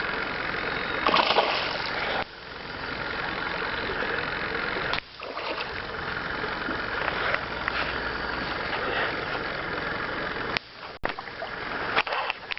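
Fishing boat under way while trolling: motor running under an even rush of water along the hull, with a few abrupt breaks.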